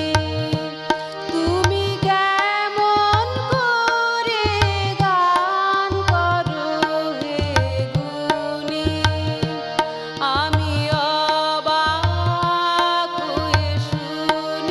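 Tabla playing a steady rhythm, with deep bass-drum strokes recurring every second or so, under a harmonium and a woman's gliding singing voice.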